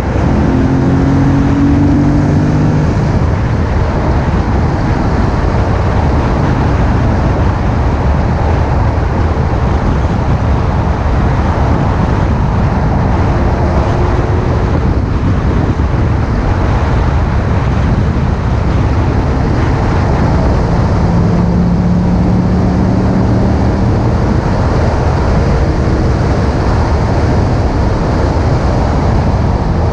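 A car at track speed, mostly steady rushing wind and tyre-on-road noise picked up by a microphone mounted low on the outside of the car. The engine note shows faintly underneath, climbing over the first few seconds and again about twenty seconds in.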